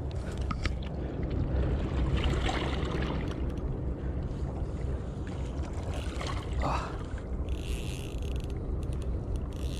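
Wind rumbling steadily on the microphone over water lapping on a rocky shore, with a short higher rasping sound about three-quarters in and again near the end.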